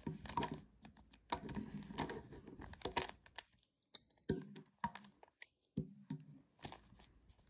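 Plastic puzzle cube being turned by hand, an irregular run of quick clicks and clacks as the layers snap round.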